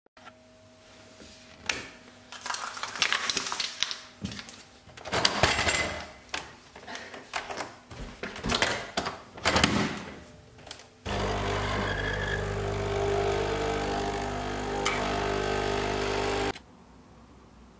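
Nespresso capsule coffee machine: a run of clicks and knocks as it is handled and its lever is worked, then its pump runs with a steady hum for about five seconds while espresso pours into the cup, cutting off sharply.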